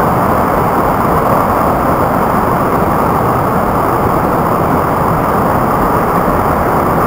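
Whitewater rapids of a boulder-strewn brook, a steady loud rush of water pouring over and around rocks. The brook is running high.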